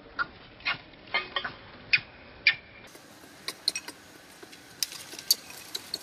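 Irregular sharp ticks and clicks, about a dozen of them, some with a brief high squeak, as a macaque mother handles her newborn baby on dry leaf litter.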